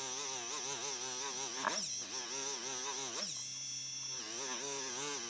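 Small pen-style rotary tool with a polishing wheel buffing a brass cup: a steady high motor whine with a lower whirring tone that wavers up and down as the wheel presses on and off the metal.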